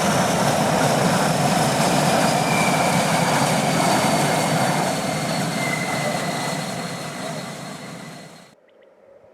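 Air Tractor AT-602's Pratt & Whitney PT6A-60AG turboprop passing low and fast: loud propeller and turbine noise with a high whine that slides down in pitch as the plane goes by. The sound fades over the last few seconds and then cuts off abruptly near the end.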